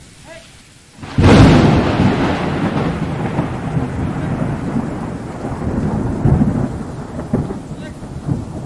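A clap of thunder: a sudden loud crack about a second in, followed by rumbling that slowly fades away.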